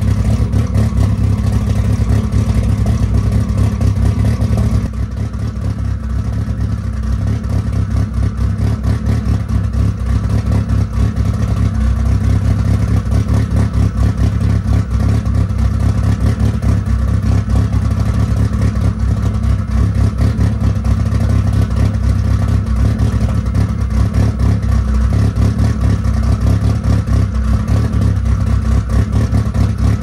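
Turbocharged 4G63 four-cylinder engine of a Plymouth Laser running steadily through its exhaust, a little quieter from about five seconds in.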